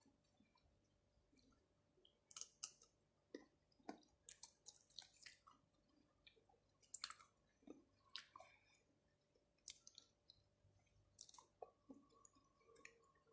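Close-miked chewing of raw shrimp and octopus: irregular wet, sticky mouth clicks and smacks, a few every second, with quiet gaps between.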